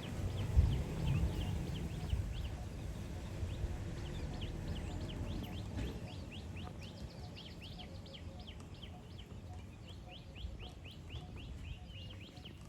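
Birds calling in a dense series of short, quick downward-sliding chirps, thickest in the second half. A low rumbling noise sits under the first few seconds and fades.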